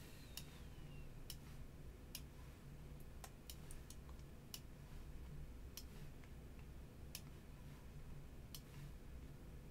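Computer mouse clicking, about a dozen short, sharp clicks at uneven intervals, with a quick cluster a little after three seconds in. Under them runs a faint steady low hum.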